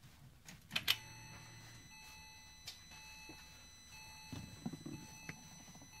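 Ignition key being turned in a car, two sharp clicks about a second in, followed by several faint, steady, high electronic tones that hold on; a few soft knocks and rustles near the end.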